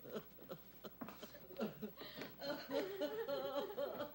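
A person weeping: short, broken, gasping sobs at first, then from about halfway a quavering, wailing cry.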